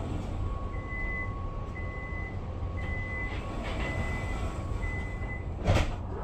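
Tram door-closing warning signal, five short electronic beeps about a second apart, over the low rumble of the tram. A sharp knock comes near the end.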